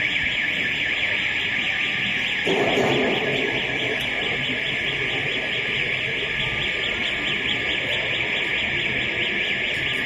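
A loud, steady, high-pitched buzz with a fast, even pulsing, over a low background rumble.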